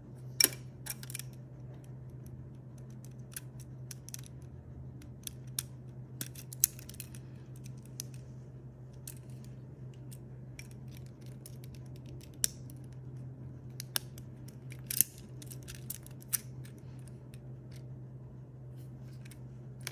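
LEGO Technic plastic parts clicking and snapping as they are handled and fitted together: scattered sharp clicks at irregular intervals, the loudest about half a second in. A steady low hum runs underneath.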